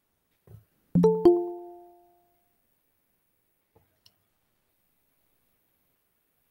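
Google Meet notification chime: two quick electronic bell notes, the second higher, each ringing out over about a second. It signals a new chat message or a participant joining the call. A faint soft knock comes just before it.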